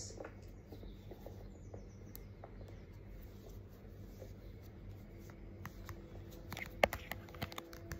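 Double-pointed knitting needles clicking and rubbing as stitches are worked in bulky blanket yarn: faint scattered ticks at first, then a quicker run of sharper clicks in the second half, the loudest about two-thirds of the way through.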